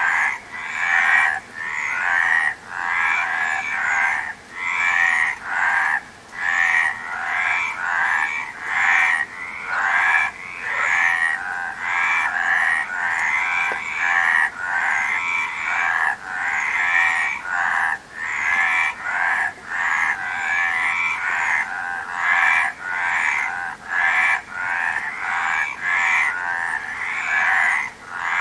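Frogs croaking in a continuous chorus: short calls repeating about one to two times a second, overlapping one another without a break.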